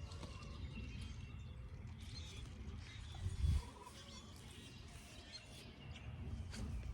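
Small birds chirping over a steady low rumble outdoors, with one dull low thump about three and a half seconds in.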